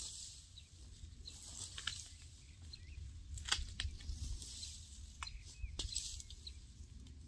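Scattered light clicks and rustles from plastic mesh netting being handled and spread, with a few faint bird chirps and a low wind rumble on the microphone.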